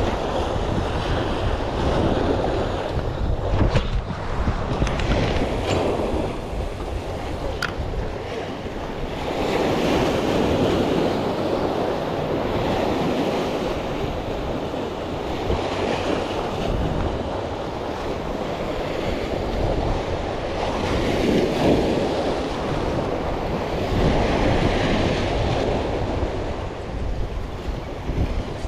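Sea waves washing against jetty rocks, surging every few seconds, with wind buffeting the microphone.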